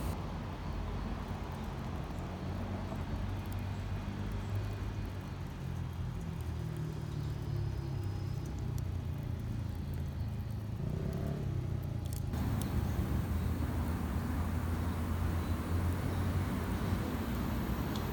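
Steady low rumble of road traffic. About twelve seconds in, the sound changes abruptly and a brighter hiss joins it.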